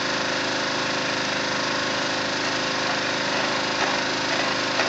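Steady, unbroken running of a small engine over the even hiss of a gas burner preheating a thermite weld mould clamped on a rail joint.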